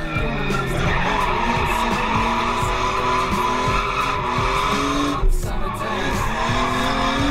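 Drift car's engine revving hard with the tyres skidding, heard from inside the cabin; the revs dip briefly about five seconds in, then climb again.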